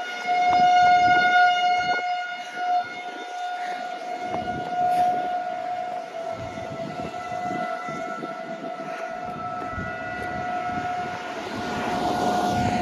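Federal Signal 2001 outdoor warning siren sounding its steady single tone for a tornado drill, swelling and fading in loudness as it sweeps round.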